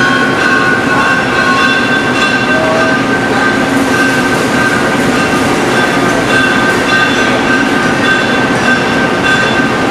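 Metal-cutting machine tool running steadily with its cutter working a metal workpiece: a continuous loud machine noise with a high whine running through it.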